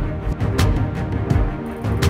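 Background music with sustained low notes and sharp percussive hits, the clearest about half a second in.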